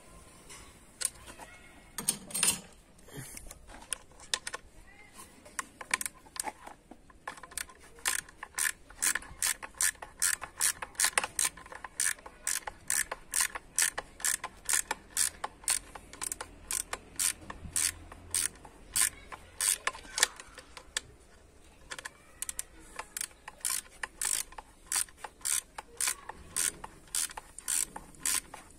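Ratchet wrench clicking as it is swung back and forth to undo a bolt on the EGR valve. After a few scattered clicks it settles into a steady run of two to three clicks a second, with a short pause about two-thirds of the way through.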